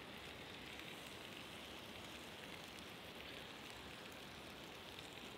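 Lamb cutlets sizzling over a campfire: a steady, faint hiss with a few small crackles.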